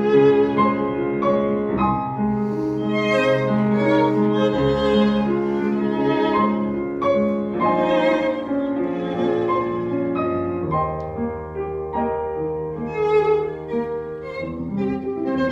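Violin and piano playing a classical violin sonata: the violin draws long, held notes over sustained piano chords and low bass notes.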